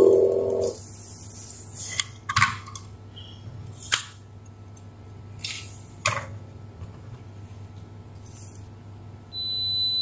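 Digital multimeter's continuity beep: one steady high beep of about a second near the end, as the probes on the microcontroller's supply and ground pins find a short circuit. A low, steady humming tone fades out in the first second, and a few faint clicks come from handling the board.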